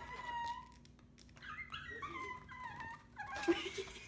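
A pet dog whining in a series of high, wavering whines, a drawn-out one first and then several shorter ones. It is the dog's vocal attempt to "say Mom" when asked.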